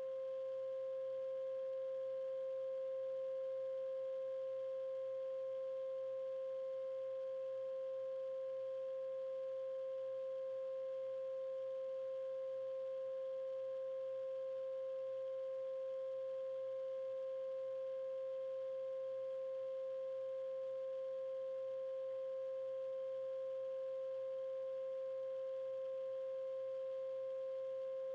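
A steady 528 Hz tone: one unchanging pitch with a fainter octave above it, held without a break or any fade.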